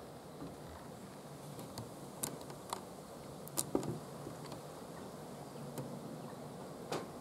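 A handful of short, sharp clicks and taps, spaced irregularly, two close together about three and a half seconds in, over a faint steady background.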